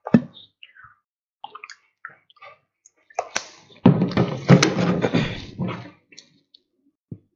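A person drinking from a water bottle: a thump as the bottle is handled against the desk, small handling clicks, then about two seconds of louder noise around the middle as she drinks.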